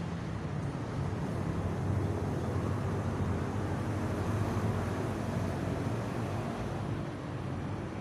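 Steady low outdoor rumble with no distinct events.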